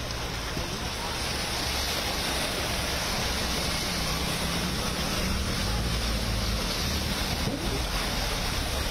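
Cars and a motorbike driving through deep floodwater: a steady rush of splashing water over a low rumble of engines.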